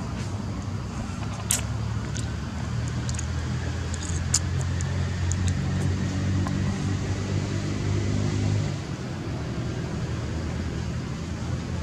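A motor vehicle's engine running, a low hum that grows louder and then drops away sharply after about nine seconds, with a few brief sharp clicks over it.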